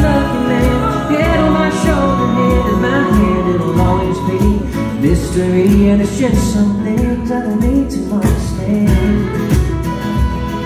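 Live acoustic country band playing: strummed acoustic guitars and keyboard under a sung melody, with a fiddle coming in near the end.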